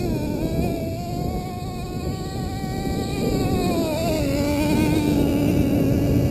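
Small two-stroke engine of a radio-controlled off-road truck running at high revs. Its note dips right at the start, climbs a little, then falls about four seconds in and settles at a lower steady pitch.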